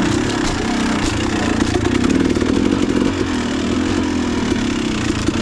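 Dirt bike engine running under load, its pitch rising and falling as the throttle is worked, with scattered knocks and clatter from riding over rough, rocky ground.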